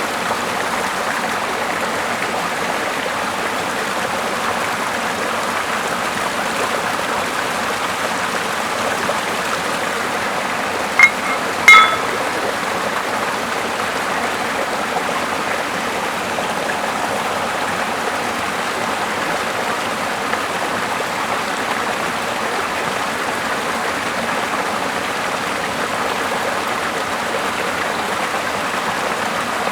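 Steady rushing of running water, like a stream. About eleven seconds in, two short, sharp pitched sounds a second apart stand out as the loudest moments.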